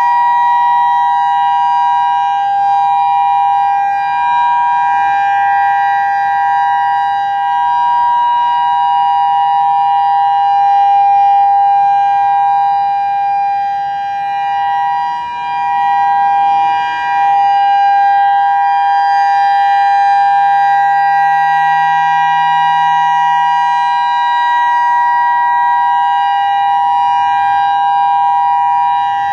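Federal Signal EOWS 612 electronic outdoor warning siren sounding its steady Alert signal: a loud two-note tone held at a constant pitch, its loudness wavering slightly.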